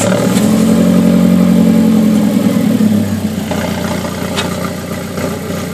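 Alfa Romeo 4C's 1750 TBI turbocharged four-cylinder engine idling just after starting, heard close at the exhaust tip. It runs at a higher, louder idle for about three seconds, then settles to a slightly lower, quieter idle.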